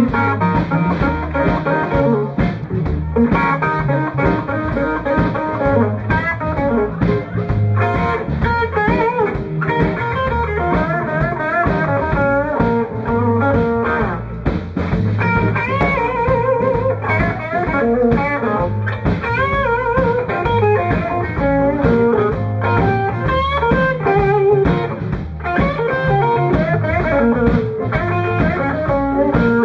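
Live blues band playing an instrumental passage: electric guitar lead with many bent notes over electric bass and a drum kit.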